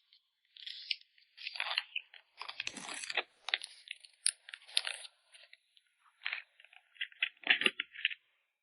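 Crinkly packaging rustling and crackling in short bursts as photocards are handled and packed, with small clicks and a couple of soft taps, one near the end.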